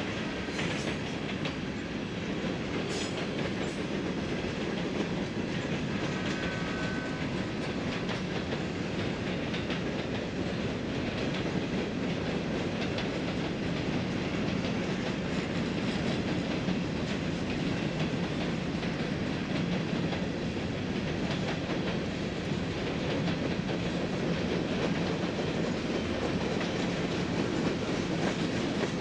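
Freight train rolling past, a steady rumble of steel wheels on rail with clickety-clack from the cars. A brief faint high-pitched squeal comes about six seconds in.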